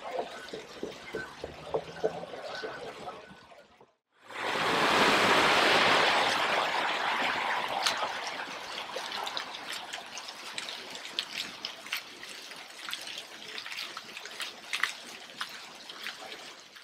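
Ground fountain jets splashing in a steady hiss of falling water, loudest just after a cut about four seconds in and then easing off, with scattered light clicks. Before the cut, a quieter outdoor ambience with faint voices.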